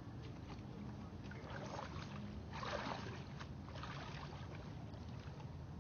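Water sloshing and splashing in shallow swamp water, with a louder swish about two and a half seconds in.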